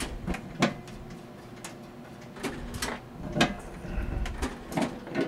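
Electromechanical traffic signal controller's hinged metal mechanism panel being worked loose and swung open out of its metal cabinet, giving a series of irregular knocks and clicks.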